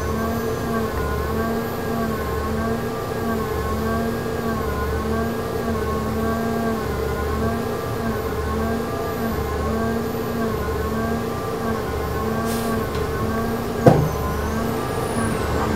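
The running machinery of an ElDorado National EZ Rider II gasoline-electric hybrid bus, heard from inside the cabin: a steady hum with a low drone pulsing about once a second and higher tones wavering slowly up and down. A single sharp knock comes near the end.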